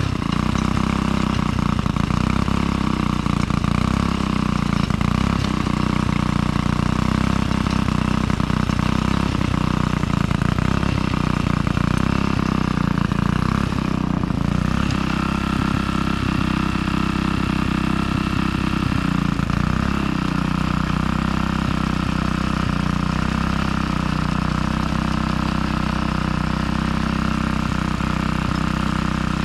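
An engine running steadily at an even speed, its tone shifting slightly about halfway through.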